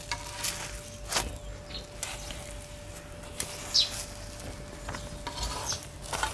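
A few light clicks and scrapes of a metal spatula on an iron tawa as a paratha is turned and pressed, over a faint hiss. A short high chirp sounds about two-thirds of the way through.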